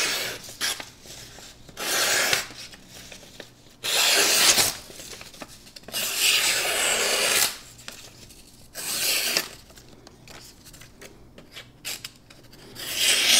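The stonewashed blade of an Oz Machine Co. Roosevelt XL knife slicing through sheets of paper, in six separate rasping slices a second or two apart. The blade cuts cleanly through the paper, the sign of a sharp, super slicey edge.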